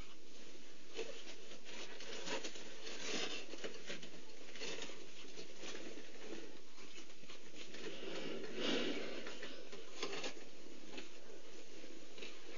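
Cheetahs purring gently while week-old cubs nurse: a steady breathy purr with brief louder noises scattered through, the loudest about two-thirds of the way in.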